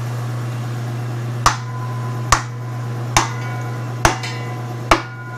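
Hammer blows on a wooden block held against the crankshaft pulley hub, driving the pulley onto the crankshaft of an Allis-Chalmers C engine. There are five sharp strikes, a little under one a second, each followed by a brief metallic ring.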